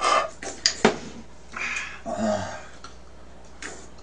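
Spoon and chopsticks clinking against a soup bowl while eating, with several sharp clicks in the first second. Softer eating noises and a brief voice-like murmur follow.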